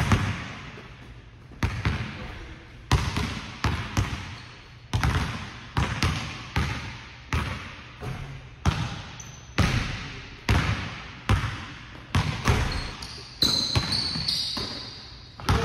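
A basketball bouncing on a hardwood gym floor as players dribble, one to two bounces a second at an irregular pace, each with a hall echo. Short high squeaks come near the end.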